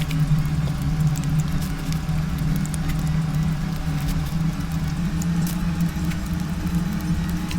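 Chewing and small scattered clicks of someone eating skewered chuanchuan, over a steady low hum.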